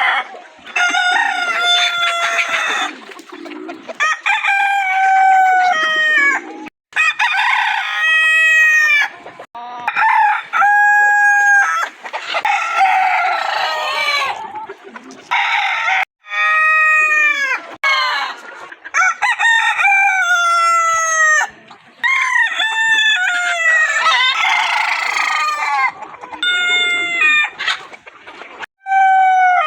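Roosters crowing over and over, one cock-a-doodle-doo after another, each crow ending in a falling drawl. The crows are spliced together from separate recordings, with sudden cuts between some of them.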